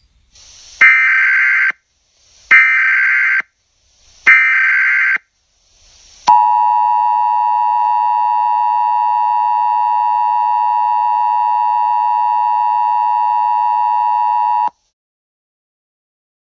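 Emergency Alert System tones: three short screeching bursts of SAME header data, about a second and a half each and each led in by a brief hiss, then the two-tone attention signal held steadily for about eight seconds before cutting off suddenly.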